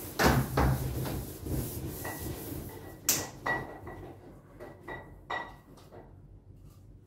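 Knocks and scraping of a long electrical conduit pipe as it is bent into an arch and its end is pushed into a stand. The knocks come thick and loud over the first three and a half seconds, then thin out to a few fainter clicks.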